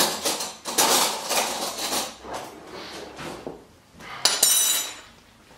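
Metal cutlery rattling as a kitchen drawer is rummaged for a spoon, then one sharp metallic clink with a short ring about four seconds in.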